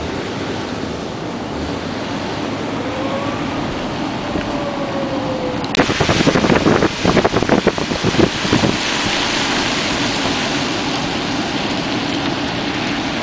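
Steady outdoor wind noise, with a stretch of loud, irregular wind buffeting on the microphone starting suddenly about six seconds in and easing off around nine seconds.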